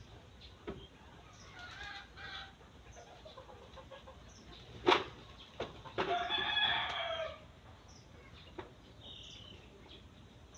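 A rooster crows once, a call of a little over a second starting about six seconds in. Just before it comes a single sharp knock, the loudest sound, with a few fainter knocks scattered around it.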